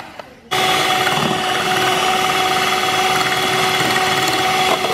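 Electric hand mixer switched on about half a second in and running at one steady speed, its twin beaters whirring through a frothy liquid in a stainless steel bowl.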